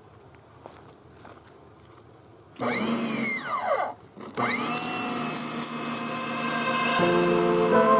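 A pressure washer starting up about two and a half seconds in. Its pitch falls, cuts out briefly, then rises and settles into a steady whine. Music comes in near the end.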